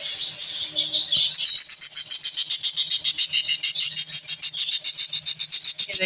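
Budgerigar chicks in the nest box calling, a loud, rapid, even series of high chirps at about eight a second.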